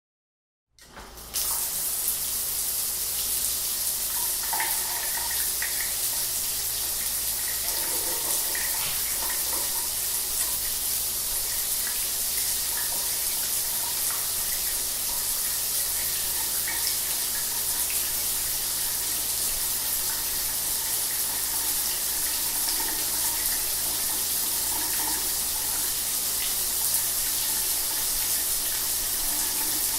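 A household shower turned on: the water comes on in under a second, rising quickly to full flow, then runs steadily as spray hitting the shower floor.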